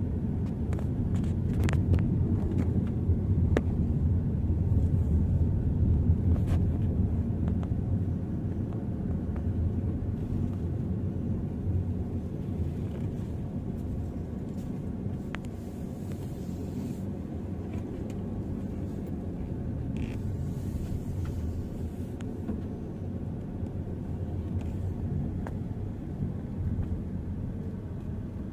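Low, steady rumble of background noise with a few faint clicks, of the kind heard from a moving vehicle or wind on an outdoor recording.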